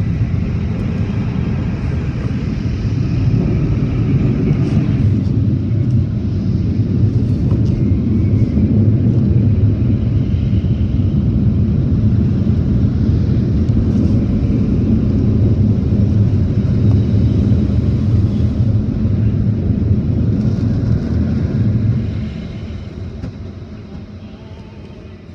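Automatic car wash machinery heard from inside the car's cabin: water spraying over the glass at first, then a steady, loud low rumble from the wash equipment that fades over the last few seconds.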